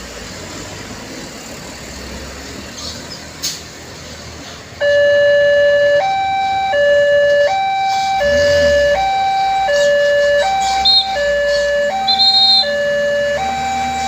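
Railroad level-crossing warning alarm: an electronic two-tone signal, low and high tones alternating about every three-quarters of a second. It starts suddenly about five seconds in, over street background noise, warning that the gates are closing for an approaching train.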